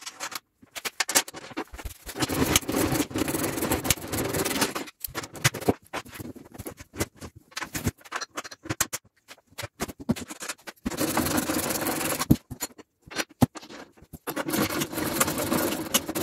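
Metal-on-metal scraping and clicking of steel nuts and bolts being fitted and tightened on a steel plow blade, in several spells of a few seconds each with scattered single clicks between them.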